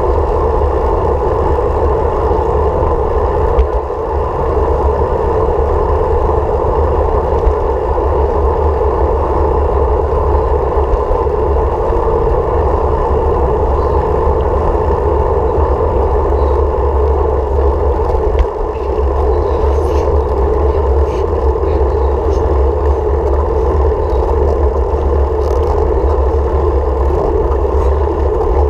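Steady wind and road rumble while riding, with a few faint ticks in the second half.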